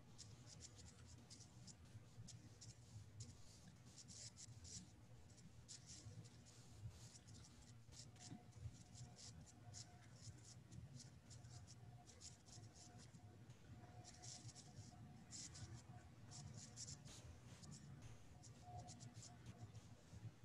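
Faint scratching of writing on paper, in quick irregular strokes, heard through a video-call microphone over a low steady hum.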